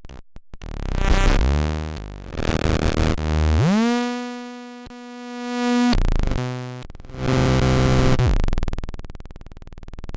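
Eurorack modular synthesizer patched with chaos and noise modules, giving harsh noise mixed with buzzy pitched tones that sweep up and then hold. The loudness swells and fades about every two seconds, as if shaped by a repeating envelope.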